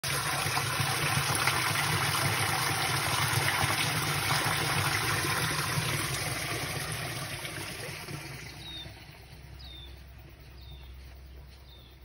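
Water from a leak running down the street gutter and pouring through a cast-iron storm drain grate: a steady splashing rush that fades away in the second half to a faint trickle. Near the end there are a few faint, short high chirps about a second apart.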